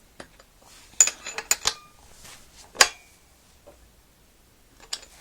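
Sharp metallic clinks and knocks from a BMX seat, its rail clamp and seatpost being handled and readjusted on the frame: a quick cluster about a second in, one louder clink near three seconds, and a faint one near the end.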